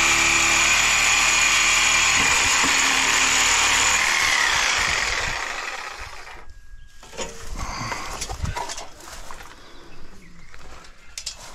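Power tool running steadily with a high whine, then winding down with a falling pitch about four to five seconds in, followed by scattered light knocks and clatter.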